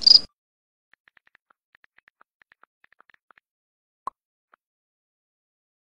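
Cricket chirping that cuts off abruptly in the first instant, followed by faint, rapid smartphone keyboard taps for about two and a half seconds and a single short click about four seconds in as the message is sent.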